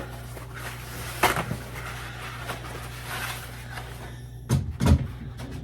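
Fridge shelf being handled and scrubbed, with light rubbing and two sharp knocks near the end, over a steady low hum.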